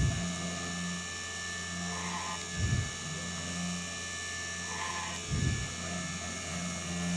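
3018 desktop CNC machine running, its spindle motor giving a steady hum while its stepper motors make a short move about every two and a half seconds, three times, in a repeating drilling cycle.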